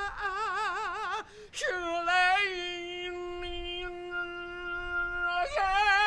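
Solo wordless singing by a man's voice. The first note has a wide, fast vibrato and breaks off about a second in. After a swoop up comes a long, steady held note, and near the end the voice jumps back into the wobbling vibrato.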